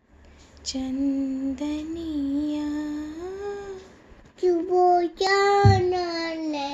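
A young boy singing in long held notes, in two phrases with a short break between them. A brief thump comes about two-thirds of the way through.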